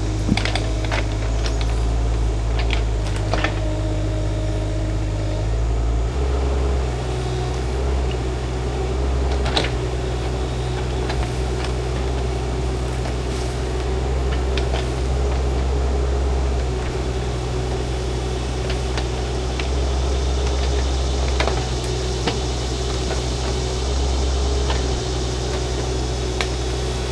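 Shantui mini excavator's engine running steadily, its note changing about six seconds in, with a few sharp knocks along the way.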